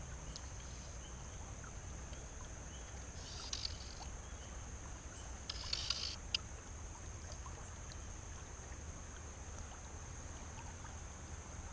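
Steady rush of flowing stream water, with a few brief sharper sounds near the middle.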